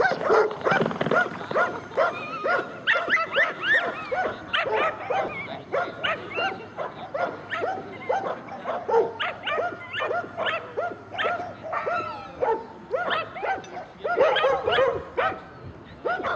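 Sighthounds barking and yelping in a rapid run of short, high, rising-and-falling yips, several a second, easing briefly about three-quarters of the way through before picking up again.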